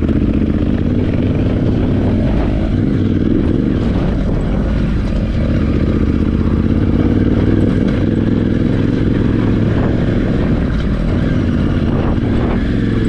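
Yamaha Ténéré 700's parallel-twin engine running steadily while the bike is ridden, heard from on board.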